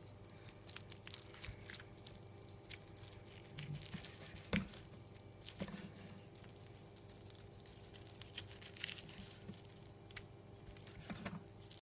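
A knife slicing through a cooked chuck roast on a wooden cutting board. Soft cutting and tearing sounds come with scattered light taps of the blade on the board, and a sharper knock about four and a half seconds in, over a low steady hum.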